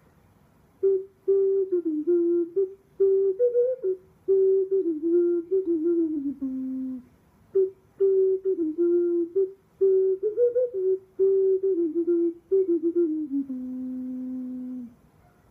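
Ocarina playing a simple melody of short separate notes, played twice over. Each phrase steps down to a long held low note, the second held until just before the end.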